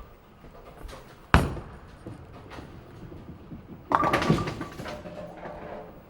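A bowling ball drops onto the lane with a sharp thud about a second in and rolls on with a low rumble. About four seconds in it hits the pins, which crash and clatter with a hollow ringing for a second or two.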